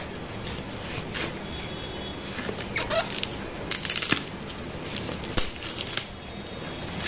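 Clear plastic packing tape being slit and peeled off a cardboard box, crackling and crinkling in irregular snaps, with a quick run of crackles about four seconds in.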